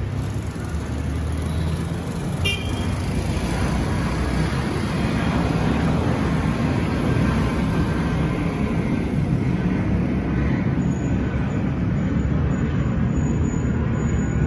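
Airbus A320 jet airliner passing overhead in its climb after takeoff: a steady engine rumble that grows slowly louder. A brief sharp click sounds about two and a half seconds in.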